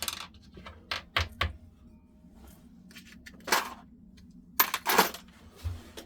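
Hard objects being handled on a workbench: irregular sharp clicks and knocks, with longer clattering scrapes about three and a half and five seconds in.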